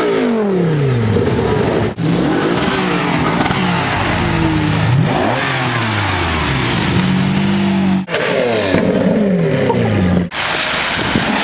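Supercar engines revving and accelerating hard in several short cuts, the pitch climbing and dropping again with each rev and gear change. The cars are a Lamborghini Gallardo's V10, a Ferrari, and near the end a Lamborghini Aventador's V12 pulling away.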